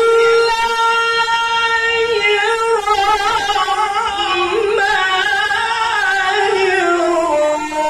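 A man's melodic Qur'an recitation (qiroah) sung into a microphone. It is one long phrase held on a high note with ornamented wavering turns, stepping down about halfway through and sinking lower near the end.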